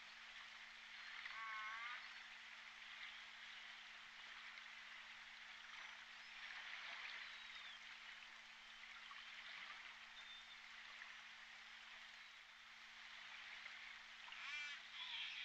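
Southern Resident killer whales (J pod) calling underwater on a hydrophone: two short wavering pulsed calls, one about a second and a half in and one near the end, with a few faint whistles in between, over steady water hiss and a low hum.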